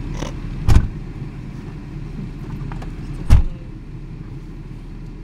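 A car's steady low rumble heard inside the cabin, broken twice by a sharp thump, the two about two and a half seconds apart.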